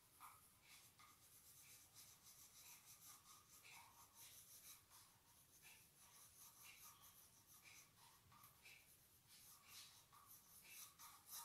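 Faint scratching of a crayon stroked over paper in short repeated strokes, about two a second.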